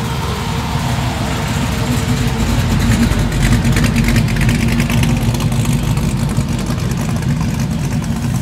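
1957 Chevrolet sedan's V8 running near idle as the car rolls slowly past; it is loudest about three to five seconds in, as the car passes closest, then eases off as it moves away.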